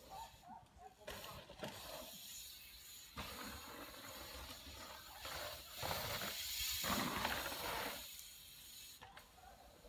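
Bicycle rolling over a dirt-jump track, tyres crunching on dirt with the freewheel hub ticking as it coasts; it grows from about three seconds in, is loudest between about six and eight seconds as the bike passes close over the jumps, then fades.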